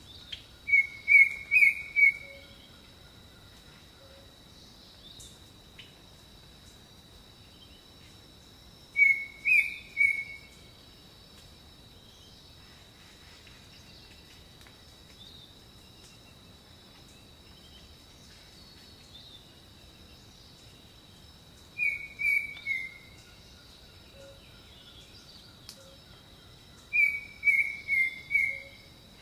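A bird calling in four short phrases, each of three or four quick, slightly falling chirps, spaced several seconds apart. A faint steady high tone, like insects, runs underneath.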